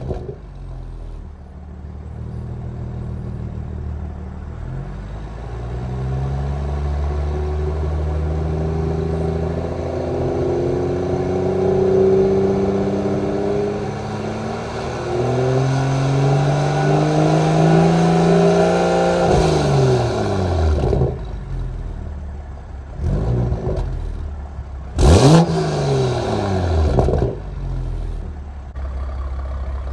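2021 Toyota Supra's turbocharged straight-six through a Remark exhaust and catless downpipe, driving past several times. The exhaust note climbs as the car accelerates in, then drops in pitch as it goes by. Near the end comes a quicker, louder pass with a sharp fall in pitch.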